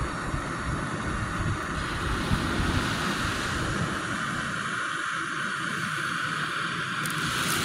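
Wind buffeting the microphone in gusts over a steady rush of surf, the low rumble easing about five seconds in and the surf hiss growing brighter near the end.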